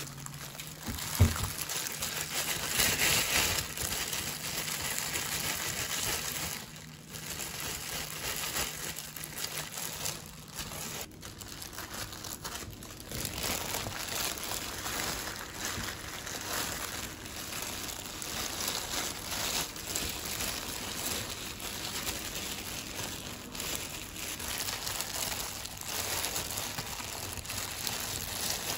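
Thin plastic food-prep gloves crinkling as gloved hands handle soft mugwort rice-cake dough and flour, with one sharp knock about a second in.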